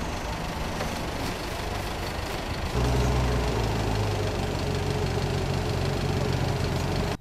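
A vehicle engine running steadily, becoming louder and deeper about three seconds in.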